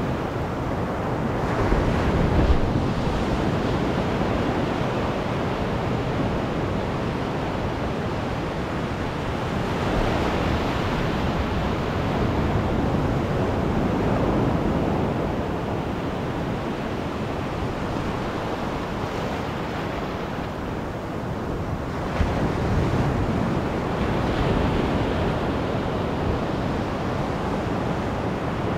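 Ocean surf: small waves breaking and foamy water washing up and back over the sand at the water's edge, swelling in surges about every ten seconds.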